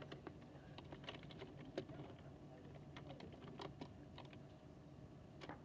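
Faint library room tone: a steady air-conditioning hum with scattered, irregular small clicks and taps.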